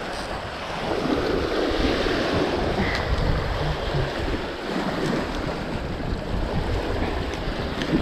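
Strong gusty wind blowing and buffeting the microphone, a steady rushing with an uneven low rumble that swells about a second in.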